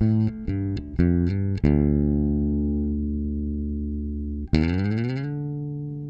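Intro music on guitar: a quick run of plucked notes, then a held chord that rings out and slowly fades. About four and a half seconds in, a new note slides up in pitch and settles into another ringing, fading chord.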